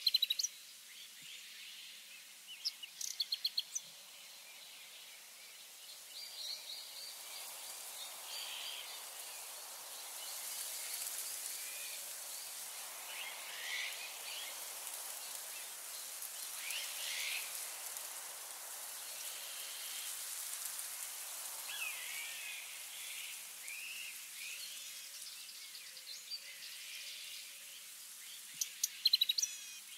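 Woodland ambience: wild birds calling with short chirps and quick trills, loudest at the start and near the end, over a steady high insect hiss that swells through the middle.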